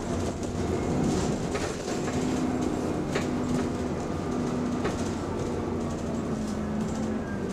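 Steady drone of a double-decker bus under way, heard from inside the cabin: the engine and the whirring radiator cooling fan run on with a held tone, and a few sharp rattles come from the body and fittings.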